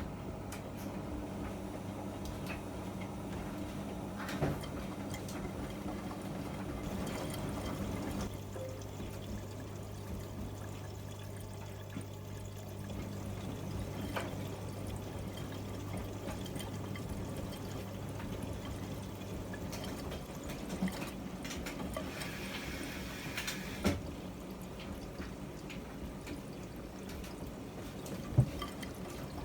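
Water pouring and splashing inside a Miele MedicWash W2585 front-loading washing machine, over a steady low hum that stops about two-thirds of the way through, with a few light knocks.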